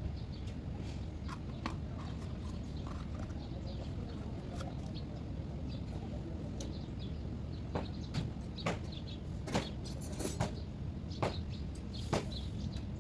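Scattered sharp clicks and taps, typical of hand tools working on metal parts of a truck steering box, over a steady low hum. The clicks come closer together in the second half.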